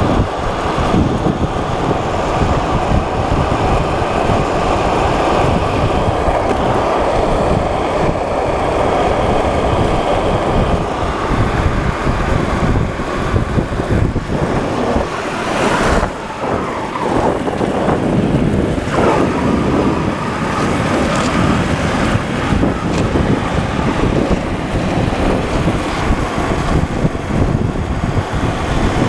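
Board wheels rolling fast down rough asphalt, a loud steady rolling noise mixed with wind buffeting the microphone. There is a brief sharp knock about sixteen seconds in.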